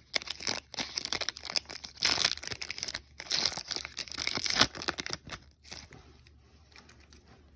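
Wrapper of a trading-card pack being torn open and crinkled: a dense run of tearing and crackling that dies away after about five and a half seconds.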